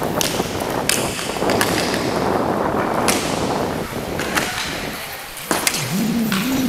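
Inline hockey skate wheels rolling and scraping across the rink floor, with several sharp clacks of sticks and puck. A brief voice calls out near the end.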